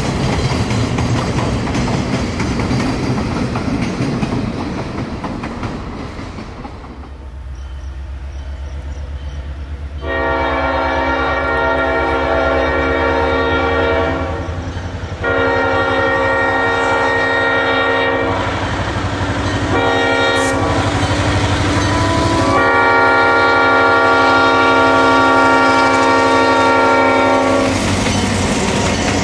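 Rail cars rolling with wheels clacking, fading away. Then the low rumble of an approaching EMD GP7's 567 diesel, and its Leslie S5T five-chime horn blowing several blasts for a grade crossing, the last one long, as the locomotive arrives.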